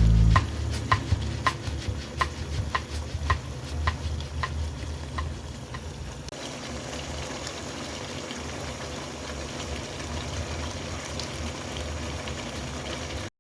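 Chicken frying in a pan while being stirred, a utensil clicking against the pan about twice a second for the first six seconds, then a steady sizzle that cuts off suddenly near the end.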